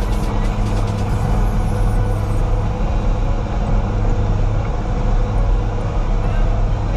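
Small fishing boat's engine running steadily at a constant speed, with a low hum.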